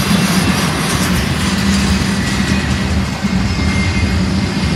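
Double-stack intermodal freight train's well cars rolling past, a steady noise of steel wheels on the rails with a low drone underneath.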